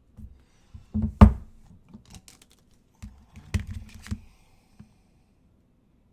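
Objects being handled and set down on a hard surface: a few knocks and thuds, the loudest about a second in and another cluster of knocks around three and a half to four seconds in.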